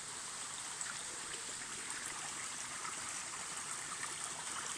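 Spring water trickling out from among rocks at its source: a small, steady stream with light splashing.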